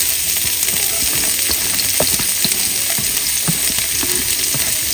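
Chopped onion and garlic sizzling in hot olive oil in a pan: a steady frying hiss with scattered small pops and clicks.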